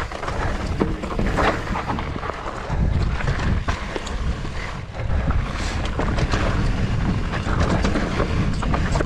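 Wind buffeting the microphone in a loud low rumble, with scattered clicks and rattles through it.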